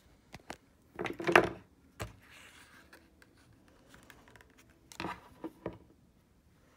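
Handling noise from a hard plastic toy dinosaur and the glossy pages of a picture book: short scrapes, rustles and taps, the loudest about a second in and another cluster around five seconds in.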